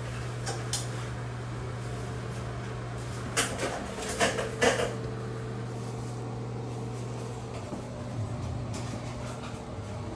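Steady low machine hum, with a handful of short knocks and clicks about three and a half to five seconds in.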